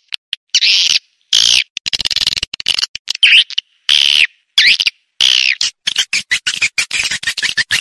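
Swiftlet calls from a swiftlet-house lure track (suara panggil, a calling sound played to draw swiftlets in to nest): buzzy twittering chirps about half a second each, arching up and down in pitch, with short gaps between them. About six seconds in they give way to a fast run of short chirps.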